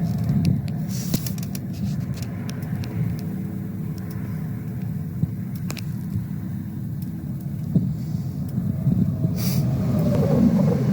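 Steady low rumble of a car being driven, with scattered light clicks and knocks, swelling a little near the end.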